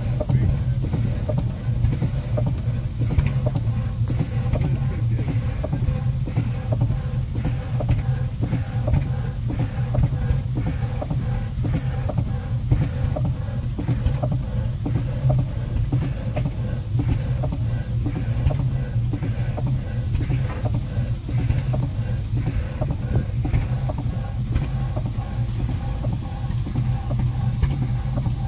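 Woodbury, Booth & Co horizontal steam engine running steadily, with an even beat of about one and a half strokes a second over a steady low hum.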